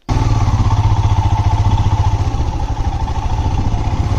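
Motorcycle engine running steadily with a rapid, even pulsing beat; it cuts in suddenly and stays level throughout.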